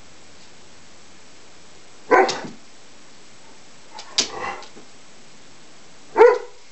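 Greater Swiss Mountain Dog barking three times, about two seconds apart, in short single barks.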